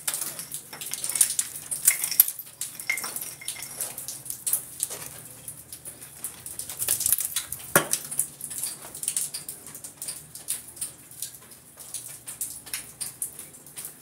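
Irregular clicking, scraping and clattering of plaster and brick fragments as a hole in a wall is chipped open and the rubble is pulled out by hand.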